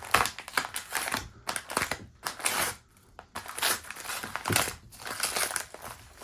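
A mailed package being unwrapped by hand: packing material crinkles and crunches in irregular bursts with short pauses between them.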